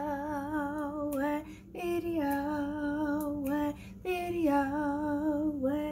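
A woman singing three long held phrases with vibrato, each stepping down in pitch toward its end.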